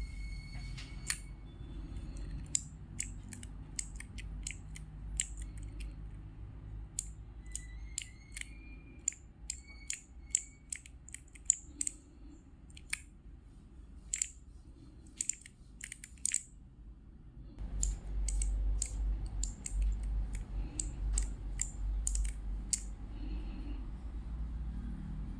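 Mechanical key switches on a mini four-key keyboard keychain clicking as the keys are pressed, in irregular single presses and quick runs, with a few short high tones in between. A low rumble underneath grows louder about two-thirds of the way through.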